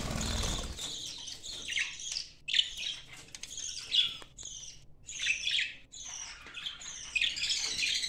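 Budgerigars chirping and chattering: a run of short, high calls that comes again and again, with a brief rustle at the start.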